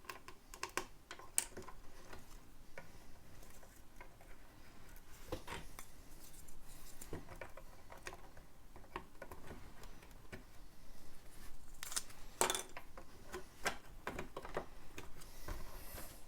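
Lego bricks being handled and pressed into place: scattered small plastic clicks and light rustling, with a denser run of clicks about twelve seconds in.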